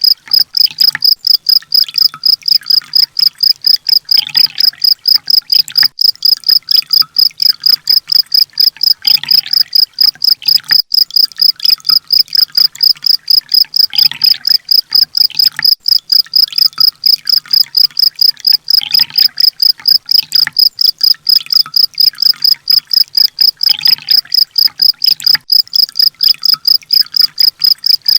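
Looped songbird-training (masteran) recording: a loud, steady, high-pitched cricket-like trill pulsing about four times a second, with a fainter call repeating about every five seconds.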